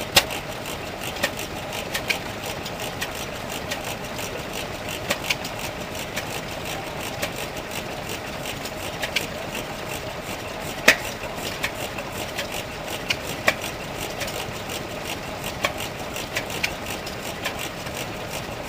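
Vintage single-cylinder stationary engine with open twin flywheels running, giving sharp, unevenly spaced knocks about every half second to two seconds, the loudest about eleven seconds in, over a steady mechanical drone.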